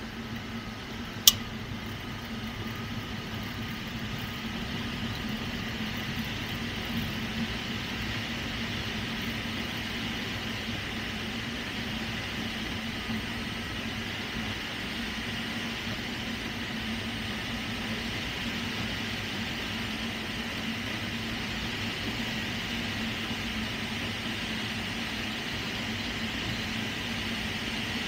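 Steady wind noise of air rushing over the canopy of a 1976 Scheibe SF-25C Falke motor glider gliding with its engine shut down and propeller stopped, over a faint steady hum. A single sharp click sounds about a second in.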